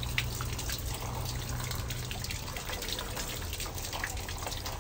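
Water running in a shower, splashing steadily with many small drips and spatters.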